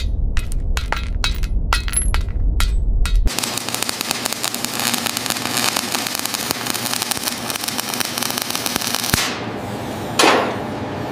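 A steel bolt rattling on a concrete floor, a quick run of bright metallic clinks over a low rumble. About three seconds in this gives way to the steady crackling hiss of welding. Near the end comes a sharp click and a falling whoosh.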